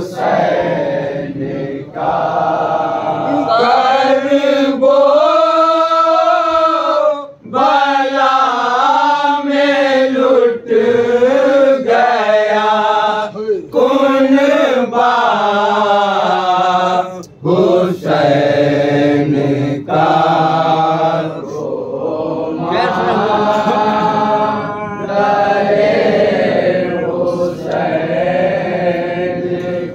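Men chanting a Shia Muharram noha (lament) in Urdu, unaccompanied. They sing long held phrases with sliding pitch and take short breaks between lines.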